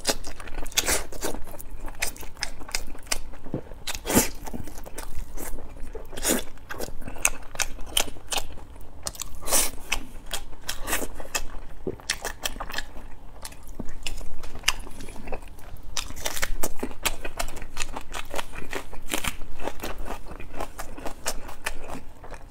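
A man chewing mouthfuls of braised pork belly and rice, heard up close as a quick, irregular run of mouth clicks.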